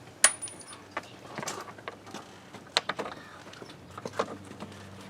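Scattered light clicks and taps of Phillips screws being fitted into a pickup's plastic interior door panel, with a short high thin tone about a quarter second in.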